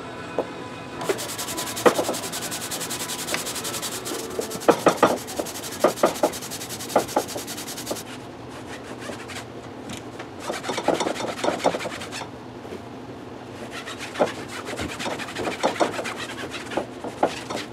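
Cloth and hands rubbing and scrubbing along the steel shaft of a barbell, steady and dense for the first several seconds, then in shorter strokes. Sharp knocks and clicks come in here and there as the bar is handled on the bench.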